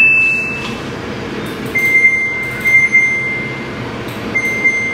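Washing machine control panel beeping as the wash programme is set: a short beep at the start, then a single long tone of about two seconds, and another of about a second near the end, over a steady hiss.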